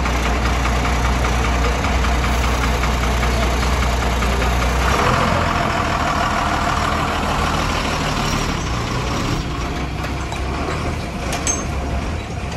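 A motor vehicle's engine running steadily with road or traffic noise. The low engine hum shifts in pitch about five seconds in.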